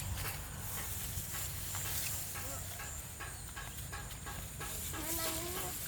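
Open-field ambience: a steady high hiss with many short ticks or chirps throughout, and a short wavering call of a distant chicken near the end.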